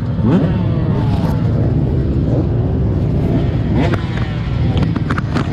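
Motocross dirt bike engine revving up and down repeatedly as it is ridden hard around the track, heard from an on-board camera with heavy wind rumble on the microphone. A few sharp knocks come near the end.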